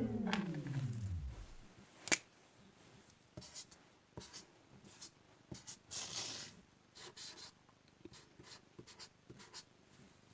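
The music ends in a downward pitch slide that fades out over the first second and a half. Then faint desk sounds: a sharp tap about two seconds in, followed by scattered clicks and short scratches of writing on paper.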